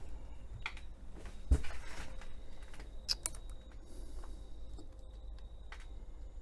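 Small clicks, ticks and a brief scrape from handling an opened wristwatch's parts, with a light knock about one and a half seconds in.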